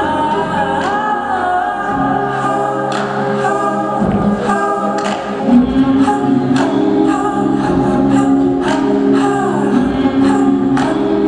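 Music: a song with sung vocals over sustained choir-like backing voices and instruments, with occasional sharp accents.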